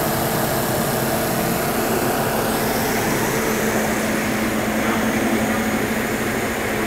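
Porsche Cayenne engine idling steadily during an automatic transmission fluid exchange, a constant hum with a few held tones as the fluid is circulated through the exchange machine spliced into the cooler line.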